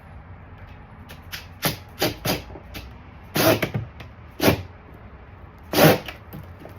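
Hand tool working loose the second 8 mm screw of a car's interior door panel: about six short, sharp clicks and scrapes at uneven intervals.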